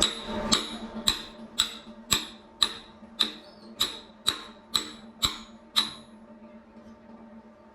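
Hammer striking metal about a dozen times at an even pace, roughly two blows a second, each blow ringing briefly; the blows stop about six seconds in. A steady low hum continues underneath.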